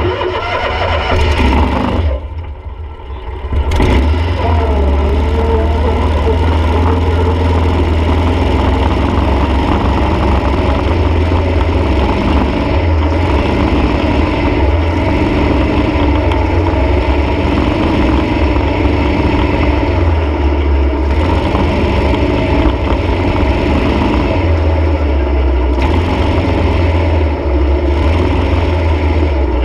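Dune buggy engine running hard over sand, very loud. It drops off briefly about two seconds in, then picks up again and holds a steady drone.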